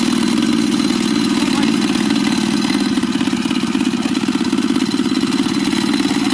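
Walk-behind tractor's small engine running steadily with a fast, even chug.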